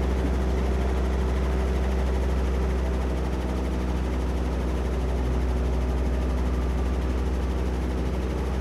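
Agusta A109S helicopter's twin turboshaft engines running at ground idle, a steady low drone with an even whine above it.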